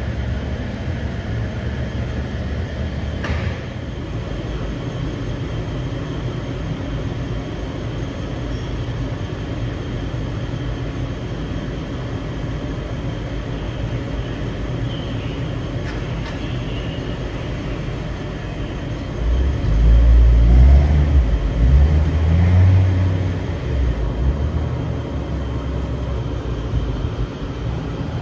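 Low, steady rumble of street traffic, with a louder low rumble from about 19 to 24 seconds in.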